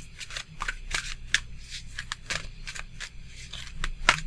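A deck of oracle cards being shuffled by hand: a quick, uneven run of short papery snaps and flicks, about three a second, the loudest one near the end.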